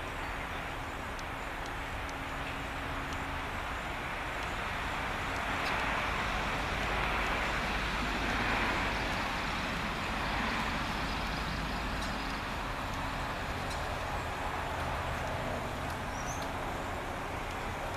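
Steady road traffic noise from a highway, tyre and engine noise swelling as vehicles pass about midway, then easing back to a steady level.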